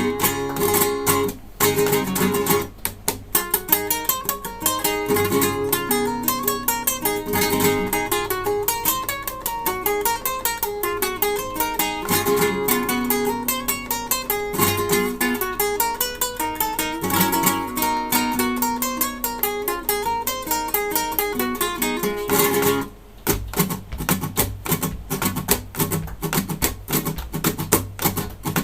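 Solo acoustic guitar playing a fast run of plucked notes. About 23 seconds in it stops briefly, then goes on with rapid, sharply struck percussive strokes.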